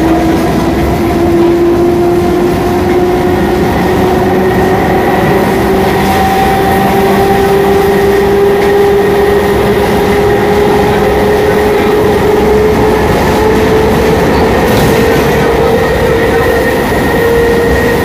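Traction motors of a CPTM Série 4400 electric multiple unit whining, the pitch rising steadily as the train picks up speed, over the steady running noise of the wheels on the rails.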